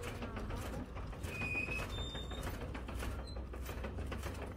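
Fodder chaff cutter (toka) running with a steady low hum and repeated short clicks as green fodder is fed into its blades.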